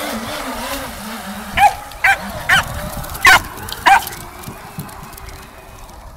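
Small white terrier barking excitedly while chasing a radio-controlled speedboat: five sharp yaps about half a second apart, starting a second and a half in.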